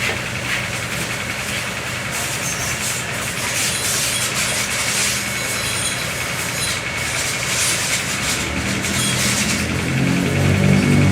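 An engine running steadily under a constant hiss; near the end a deeper humming tone grows louder.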